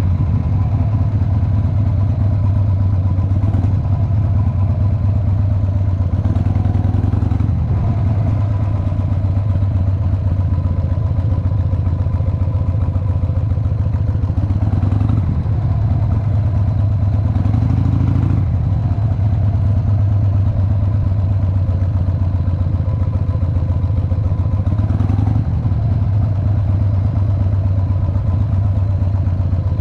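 Cruiser motorcycle engine running at low speed, with a steady low rumble and a few brief rises in the engine note as the throttle is opened.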